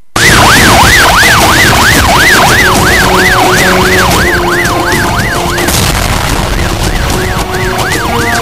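TV news opening theme: music with a beat, with a fast siren yelp sweeping up and down about three times a second laid over it. It starts suddenly, and the siren drops out for about a second after the middle before coming back.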